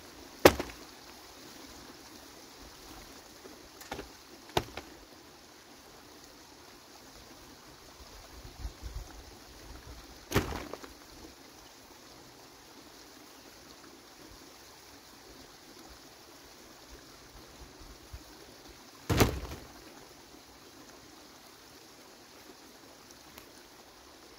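A handful of sharp knocks, about five spread out, the loudest about half a second in and another strong one near the end, over a steady hiss.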